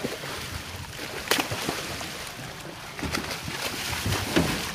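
A hooked marlin thrashing at the surface right beside the boat's hull, with water churning and splashing steadily and a few sharper splashes, the first about a second in.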